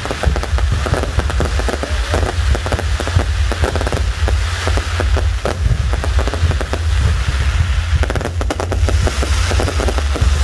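Aerial fireworks going off in a dense, continuous barrage: rapid crackling and popping over a steady low rumble of booms.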